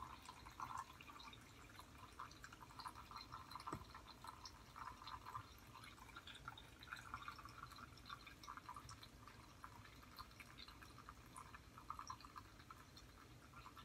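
Soapy water draining out through the small drain of a toy mini washing machine: a faint, uneven trickle with irregular drips.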